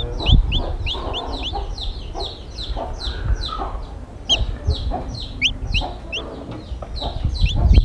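Newly hatched chicks peeping: a fast run of short, high, falling peeps, several a second, with hens clucking lower underneath.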